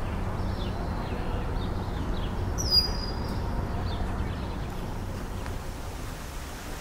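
Outdoor ambience: birds chirping faintly throughout, with one clearer high whistled note about three seconds in, over a steady low rumble.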